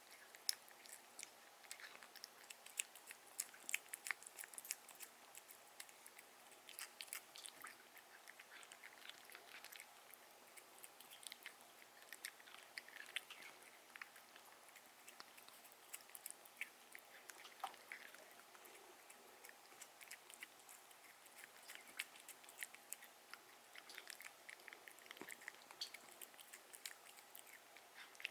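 A cat chewing its food: a faint, irregular run of small clicking chews.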